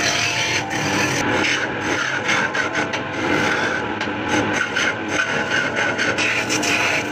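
Wood being scraped and rasped by a tool in continuous strokes, with many small crackles and ticks.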